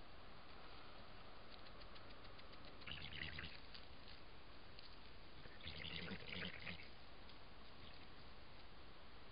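Steady hiss from a camera trap's microphone, with two short bouts of crackly rustling about three and six seconds in: a European badger moving through dry leaf litter as it walks away.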